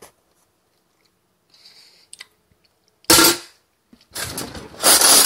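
Ceramic dishes and metal cutlery clattering: a sharp clatter about three seconds in, then a longer rattle.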